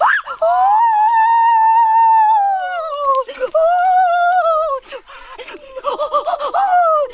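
A boy's voice in long, high wails: two drawn-out cries, the first about three seconds long and sliding down in pitch at its end, then a run of shorter yelps near the end.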